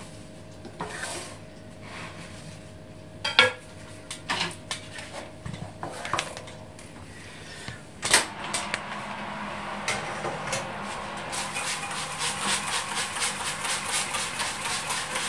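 Clinks and knocks of the dish holding the loaf being handled at the oven, then a loud knock about eight seconds in as the oven door is opened, followed by a steady rush with fast regular ticking near the end.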